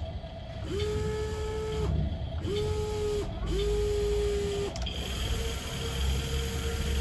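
Electric motors of a toy remote-control excavator whining in three short runs of about a second each as the boom and bucket move, each run starting with a quick rise in pitch. A fainter steady whine follows near the end.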